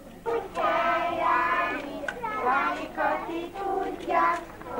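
Small crèche-age children singing a song together.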